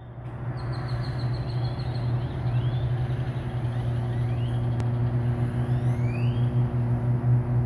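Rotisserie corn roaster running with its racks turning: a steady low hum over a noisy rush.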